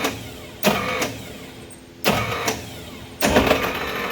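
A failing starter on a 1964 Dodge D100 is tried again and again: three short bursts of starter noise, each starting suddenly and dying away, with no engine running in between. The starter is worn out.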